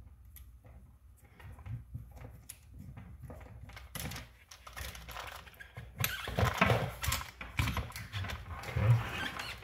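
Small hard parts and screws clicking and rattling as they are handled, an irregular clatter that grows busier and louder about six seconds in.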